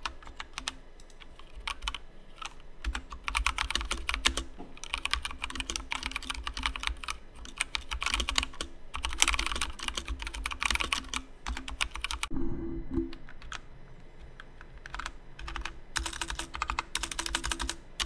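Typing on a Kodessa KDA61 60% mechanical keyboard with Kailh brown (Kailh YH) switches, a fast clacking of keystrokes in bursts with short pauses; a lightweight, plasticky and very hollow board.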